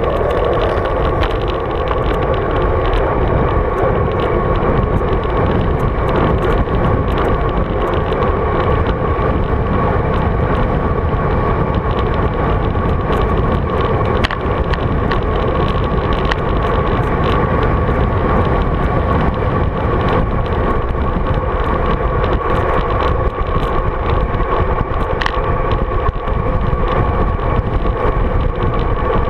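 Wind rushing over the bike-mounted GoPro Hero 3 microphone, with road-bike tyres rumbling on asphalt during a fast descent. It is a loud, steady noise with a faint steady whistle held over it.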